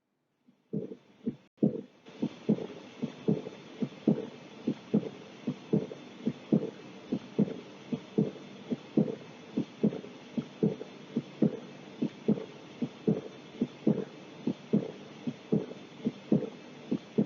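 Heart sounds from an auscultation recording: regular lub-dub pairs of low thumps at about 70 beats a minute, starting about a second in, over a steady hiss.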